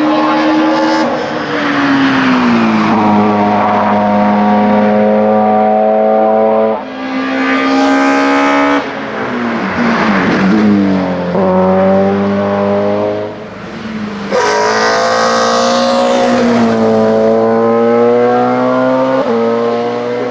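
BMW 318i E36 STW race car's two-litre engine at full throttle up a hillclimb course. The revs climb, then drop with a gear change or a lift for a bend several times, and the car is loudest as it passes close about halfway through.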